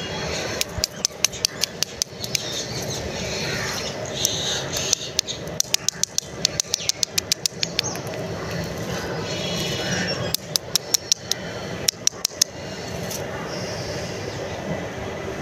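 Plastic-wrapped lollipops being handled: the wrappers crinkle and click in three runs of rapid sharp ticks, over a steady background hiss.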